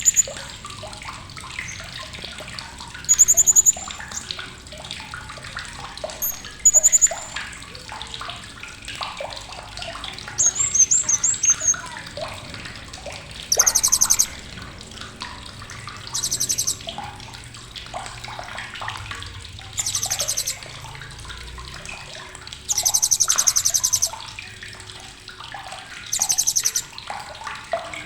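Hanging parrot (srindit) giving sharp, very high, rapid chattering trills in short bursts, eight of them, each half a second to a second and a half long, a few seconds apart. Softer scattered chirps and a faint splashing haze sit underneath.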